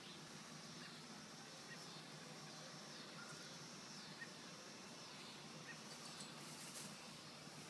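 Faint outdoor quiet with a steady high-pitched insect drone that swells and dips, and a few soft rustles about six to seven seconds in.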